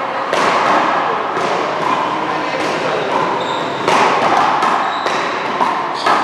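Hard rubber ball struck with a wooden paddle and bouncing off the wall and floor during a one-wall paddleball serve and rally: a string of sharp smacks about a second apart, coming quicker after the serve about four seconds in, each ringing on in a large hall.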